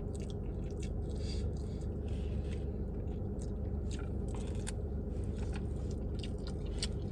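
A person chewing food close to the microphone, with short wet mouth clicks and smacks at irregular intervals, over a steady low hum.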